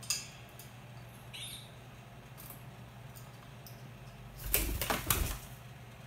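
Indian ringneck parakeet's wings flapping in a short flurry about four and a half seconds in, a flight down from a perch to a landing. A brief rising squeak comes earlier, along with a few faint clicks.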